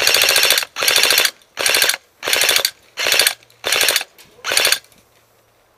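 Airsoft gun firing on full auto in seven short bursts, each under a second, made of rapid closely spaced shots; the firing stops a little before five seconds in.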